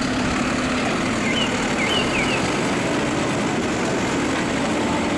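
Automated side-loader garbage truck's diesel engine running steadily while its hydraulic arm lifts a wheeled cart, with a few short chirps about a second in.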